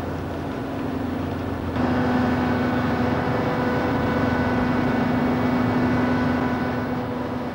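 Machinery of a project 207M minesweeper running under way: a steady drone with a low hum. About two seconds in it turns louder and a whine of several steady tones joins it.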